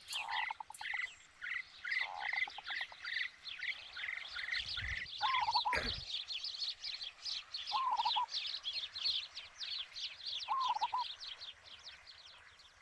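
Wild animal calls: a dense, fast run of high, falling chirps, with a short, lower warbling call repeating about every two and a half seconds. A brief low rumble comes around the middle.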